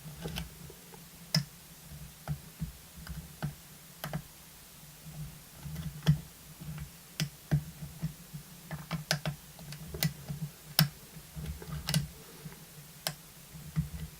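Irregular small metallic clicks and taps of a lock pick working the pins of an old six-pin Russwin lock cylinder under tension, as the pins are set again after a lost false set.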